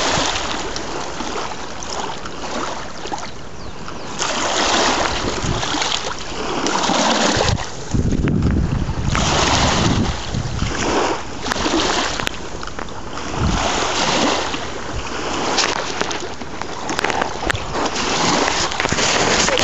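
Small waves lapping and washing up onto a muddy, pebbly shore, swelling and fading every second or two, with wind buffeting the microphone.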